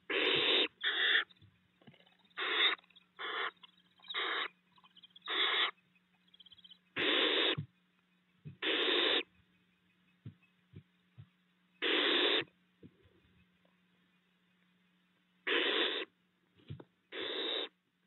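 Barn owl owlets giving hissing, snore-like calls: about eleven rasping hisses, each under a second long, at irregular intervals, with a pause of a few seconds in the middle.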